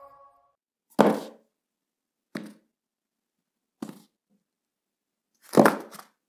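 Cardboard packaging boxes handled on a hard surface: four short knocks about a second and a half apart. The last is the loudest and longest.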